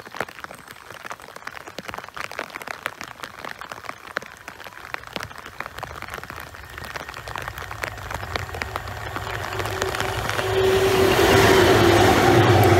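Rain pattering, then a Freightliner diesel freight locomotive approaching and passing close by. Its engine grows louder from about seven seconds in and is loudest near the end, with a steady droning tone over a low rumble.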